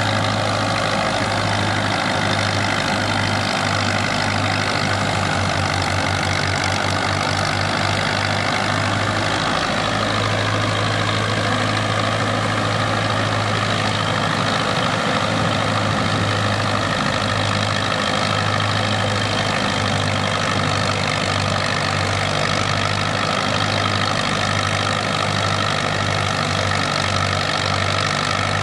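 Belarus 510 tractor's diesel engine running steadily while driving a wheat thresher, the engine and the thresher's machinery making one continuous mechanical drone.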